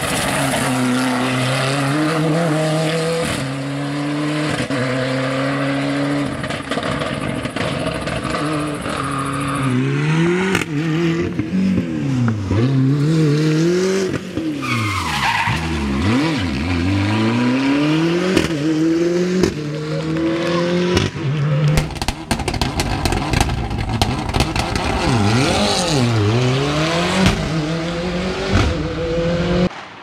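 Ford Escort RS Cosworth Group A rally car's turbocharged 2.0-litre four-cylinder driven hard: the revs climb through several upshifts, then swing sharply up and down over and over. For the last several seconds a fast run of exhaust pops and crackles sits over the engine.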